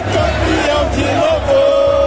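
Loud music with singing, over crowd noise, with a steady low beat; a long held sung note comes in about one and a half seconds in.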